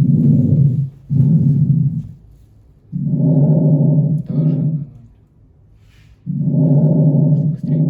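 Lung sounds heard through a stethoscope on the back: about three breaths, each an in-and-out pair of muffled sounds about a second long with a steady low, hum-like pitch, repeating roughly every three seconds.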